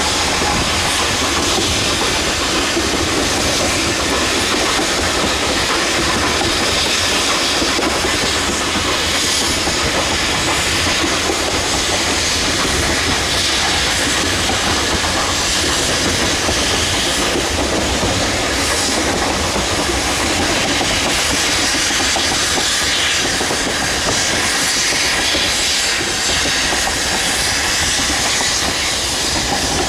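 Narrow-gauge freight train running, heard from an open gondola car: wheels rumbling and clattering over the rails, with steam hiss from the K-36 2-8-2 steam locomotive No. 481 working ahead. A steady, unbroken din.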